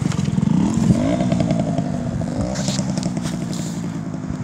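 Youth trials motorcycle engine revving up and back down a few times as the rider works up the slope, growing fainter as the bike moves away.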